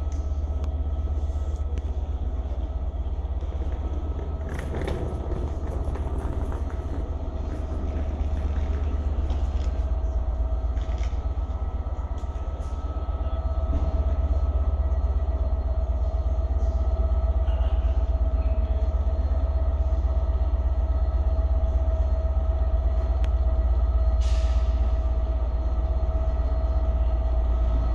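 Class 67 diesel locomotive, a two-stroke V12, idling with its train at a standstill: a steady low rumble with a steady whine over it. A brief clatter comes about five seconds in and a short hiss near the end.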